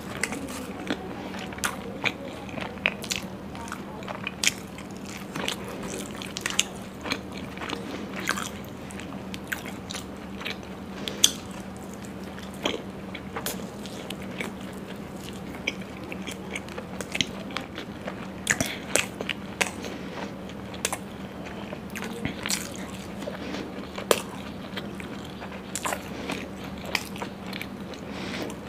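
Close-miked eating of puri and paneer butter masala: chewing with many sharp wet mouth clicks and crunches spread throughout, over a steady low hum.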